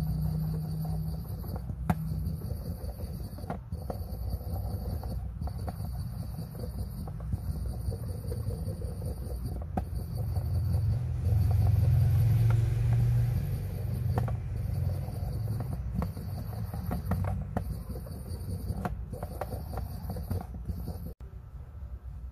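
Thin wooden stick scrubbing cleaning paste over a coin clamped in a metal holder on a wooden bench: a low rumble of the work carried through the bench, swelling in the middle, with scattered light clicks and scrapes. A high buzz pulses on and off in the background about every second and a half to two seconds.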